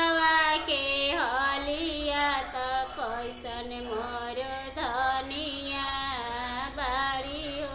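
A woman singing a Bhojpuri Shiva bhajan unaccompanied, holding long notes that slide and bend between phrases.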